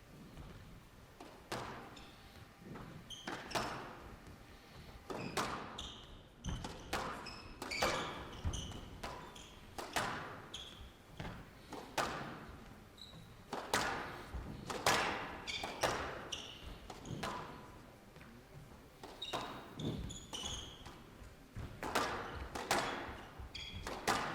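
Squash rally: the ball struck by rackets and smacking the court walls, roughly one shot a second, with short high squeaks from players' shoes on the court floor between the hits.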